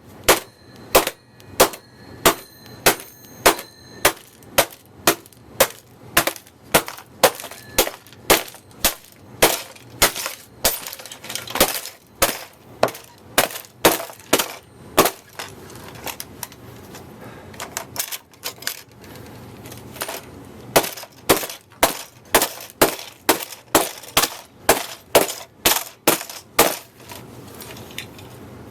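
Repeated sharp blows smashing a computer hard drive, about two a second, with a metallic ring in the first few strikes. The strikes thin out about two-thirds of the way through, pick up again, then stop shortly before the end.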